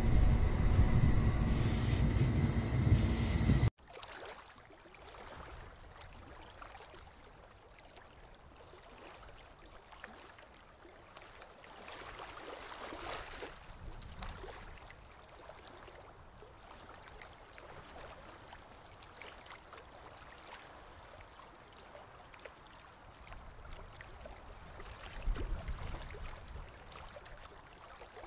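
A loud low rumble with a steady hum cuts off suddenly about four seconds in. It gives way to faint water noise heard underwater, swelling a little twice, the second time near the end.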